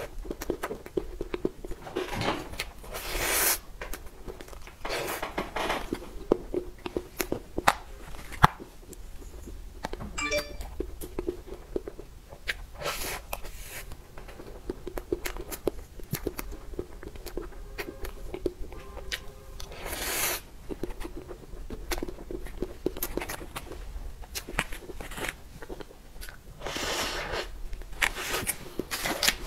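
Close-miked eating sounds of a cream-frosted sponge cake: soft chewing and mouth sounds, with many small scattered clicks from a metal spoon.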